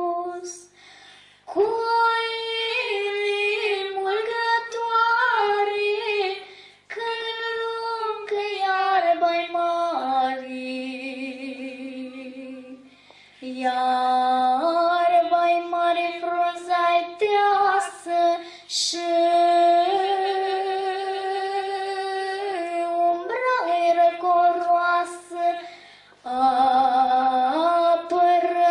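A woman and a girl singing a Romanian folk song, in long held notes with short pauses between phrases.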